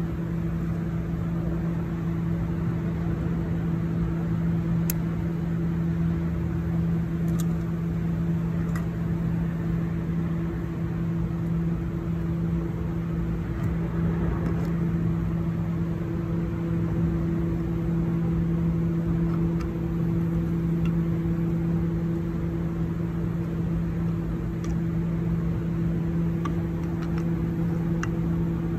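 Steady mechanical hum with a constant low drone and a second, higher tone above it, unchanging throughout. A few faint light clicks sound over it as metal transmission solenoids are handled.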